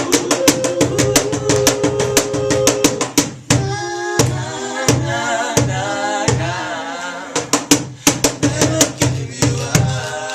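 Live soul/R&B band playing, with a drum kit keeping a steady, busy beat under held chords. In the middle a wavering melodic line carries the tune while the drums briefly drop out. The playing eases off near the end.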